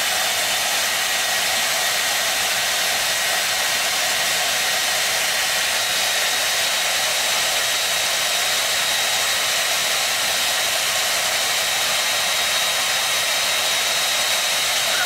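Handheld hair dryer running steadily, a constant rush of blown air with a thin, high, steady whine from its motor.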